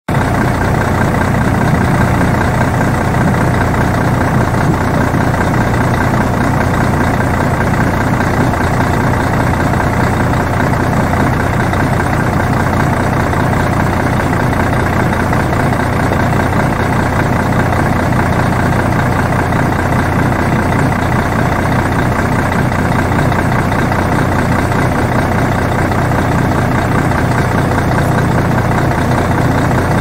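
City transit bus idling, its engine giving a steady low hum that does not change.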